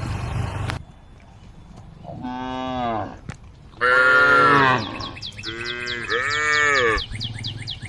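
Cows mooing, a series of long calls one after another with short gaps, the loudest about four seconds in; near the end two calls overlap.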